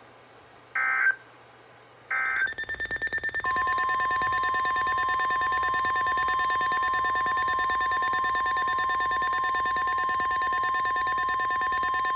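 Emergency Alert System tones: short SAME header data bursts about a second apart, then about two seconds in a loud, rapidly pulsing EAS attention alarm with a steady tone near 1 kHz joining a second later, running about ten seconds and cutting off at the end.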